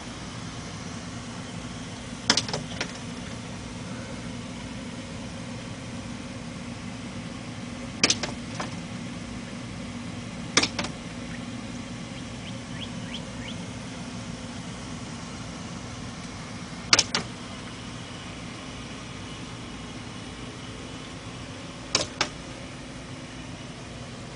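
A female northern cardinal striking window glass as it attacks its own reflection: five sharp clusters of two or three quick taps, a few seconds apart, over a steady low hum.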